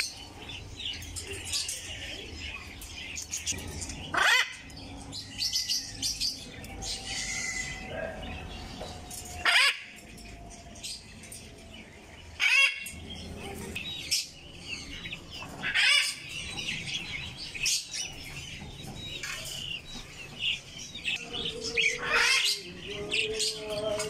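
Many caged birds chirping and twittering, with short, sharp, loud calls every few seconds.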